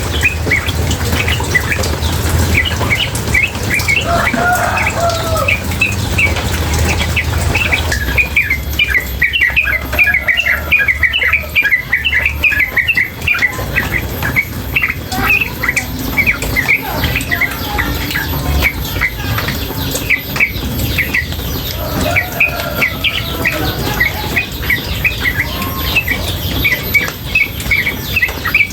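Female yellow-vented bulbul (trucukan) calling nonstop in fast runs of short, repeated chirps, over the steady rush of running water.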